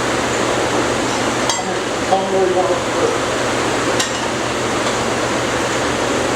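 A steady rushing noise with a low hum, broken by a few light metallic clinks of hand tools on metal, about one and a half and four seconds in.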